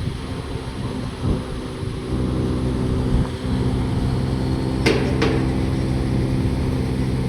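A machine running with a steady pitched hum, with two sharp knocks about a third of a second apart about five seconds in.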